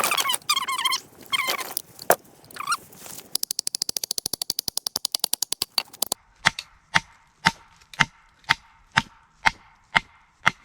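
A hatchet being knocked into a small piece of firewood to split kindling: about ten sharp, evenly spaced knocks, roughly two a second, in the second half. Before them come squeaky, whining sounds and then a rapid, even clicking rattle for a few seconds.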